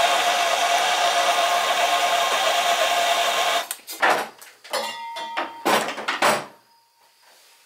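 Handheld gas torch burning with a steady hiss while soldering copper pipe joints; the flame cuts off about three and a half seconds in. Several short knocks and rattles follow.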